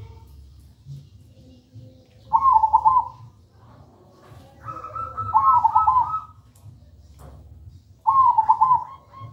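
Caged zebra dove (perkutut) singing its cooing song: three loud phrases of quick warbling coos, a second or two apart, the last running on past the end.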